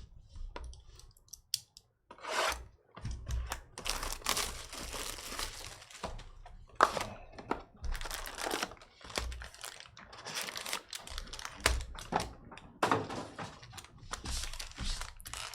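Trading-card box and pack wrappers being torn open and crumpled by hand: irregular tearing and crinkling with a few sharp clicks.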